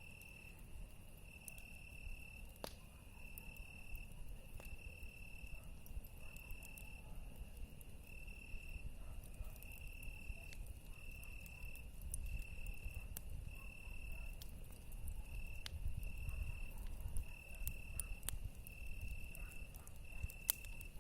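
A cricket singing: one steady high note, chirped on and off about once a second, with scattered sharp clicks.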